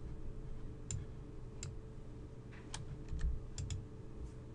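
Scattered clicks of a computer mouse and keyboard, about eight irregular clicks, over a faint steady hum.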